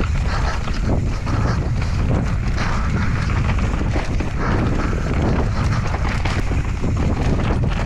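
Enduro mountain bike ridden down a dirt trail: wind buffeting the microphone over a steady rumble of tyres, with frequent knocks and rattles from the bike.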